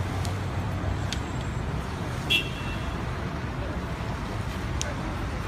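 Steady low rumble and hiss of street traffic and running engines, with a short high beep about two seconds in.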